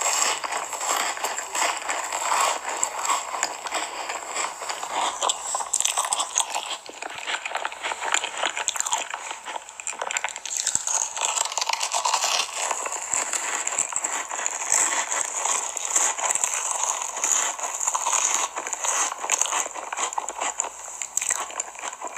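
Close-miked eating of Oreo cookies with a gooey white filling: crisp crunching bites and chewing, a dense stream of crackly clicks.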